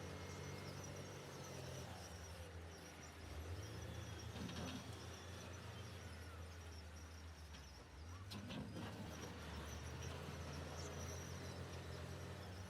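Heavy-equipment diesel engines running with a faint, steady low drone that varies a little in pitch. Faint bird and insect calls sound over it, and there is a brief click about two-thirds of the way through.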